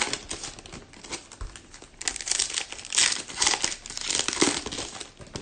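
Crinkling of trading-card pack wrappers as packs and cards are handled, in irregular bursts of crackly rustling.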